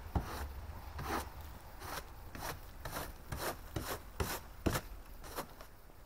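Hand snow brush and ice scraper scraping ice and crusted snow off a car windshield, in quick uneven strokes about two to three a second.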